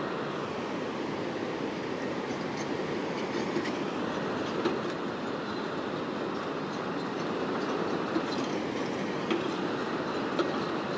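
Steel tracks of a hydraulic excavator clanking and squealing as it drives across concrete riverbed-protection blocks, over the steady rush of river water, with a few sharp metallic knocks.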